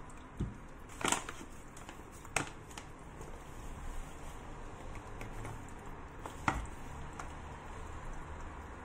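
A gloved hand mixing flour into soft margarine dough in a glass bowl, with quiet crumbly rustling and squishing. A few sharp knocks cut through it: the loudest about a second in, others after two seconds and a little past six seconds.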